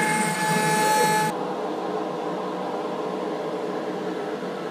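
CNC router spindle running and cutting maple, a steady high whine over a hiss. About a second in, the whine and hiss cut off suddenly, leaving a quieter, steady machine hum.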